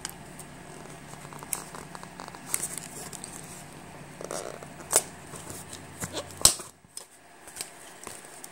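Scattered clicks and knocks of small plastic parts being handled, typical of a microSD card and its case being taken out and fitted into an action camera; the sharpest clicks come about five and six and a half seconds in.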